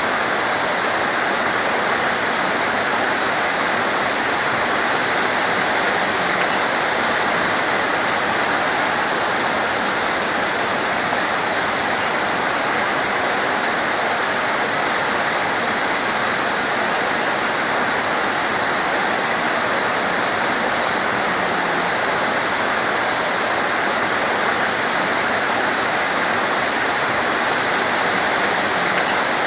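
Heavy tropical rain pouring down steadily, a dense even hiss with no letup. One short click stands out about eighteen seconds in.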